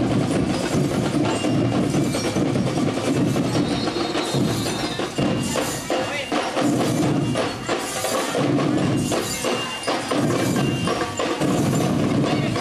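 Marching school rhythm band (banda rítmica) playing a steady beat of drum strikes, with metal bell-lyre tones ringing over the drums.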